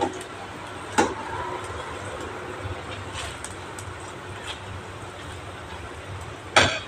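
Water boiling hard in a metal pan of okra, a steady bubbling over a low rumble. A metal spatula knocks sharply against the pan about a second in and again, louder, near the end.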